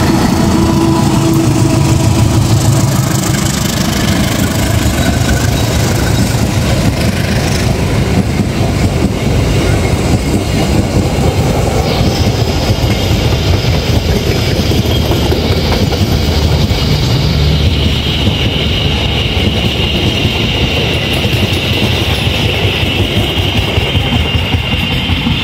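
Passenger train passing close by: a diesel locomotive's engine rumbles as it comes past, then the coaches' wheels clatter along the rails in a steady stream of noise. A high steady tone joins in over the last several seconds.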